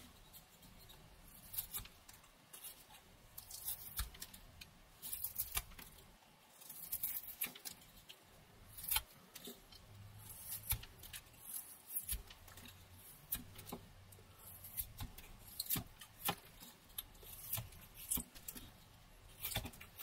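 Rough Rider pocket knife blade whittling a pine stick: a string of short, irregular scraping cuts as shavings are sliced off.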